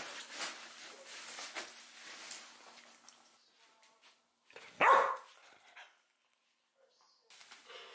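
Border collie gives one short, loud bark about five seconds in, after a few fainter sounds; the dog is irritated.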